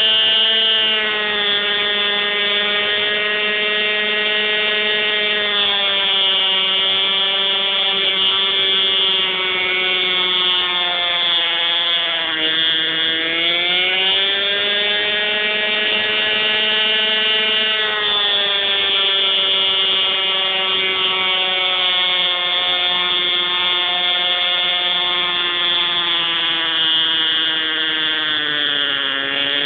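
Hirobo Shuttle radio-controlled helicopter's engine and rotor, heard up close from a camera mounted on the helicopter. It gives a loud, steady, high-pitched whine whose pitch sags and recovers, most clearly about twelve seconds in and again near the end.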